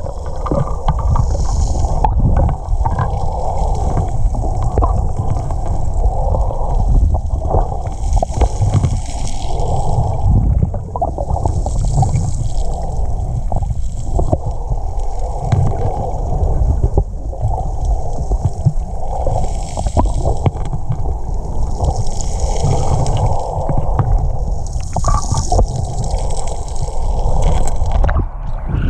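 Muffled underwater water noise picked up by a camera held below the surface: a loud, steady low rumble and sloshing, with scattered small clicks and now and then a brief hiss.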